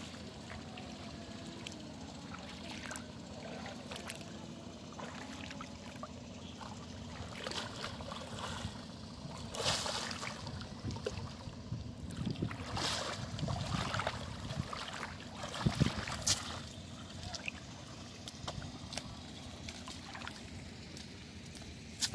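River water sloshing and splashing around a person wading and hauling in a cast net, with a run of louder splashes about halfway through.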